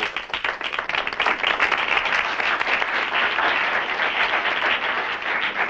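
A seated audience of students clapping, a dense, steady applause of many hands that holds at the same level throughout.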